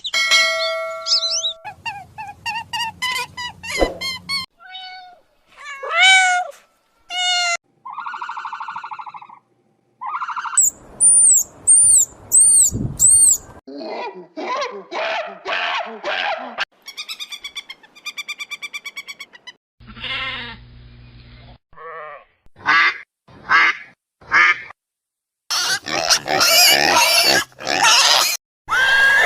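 A run of different bird calls spliced one after another: whistled chirps, repeated high notes and harsh, raspy calls, each clip starting and stopping abruptly.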